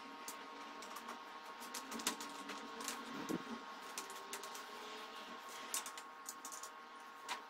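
Faint scattered clicks and taps of small metal parts as nuts and bolts are turned by hand on a steel rifle rest frame, over a steady faint hum.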